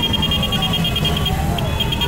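A crowd of small motorcycles idling together, with a siren wailing slowly down and then back up in pitch and a rapid high-pitched beeping over the engines.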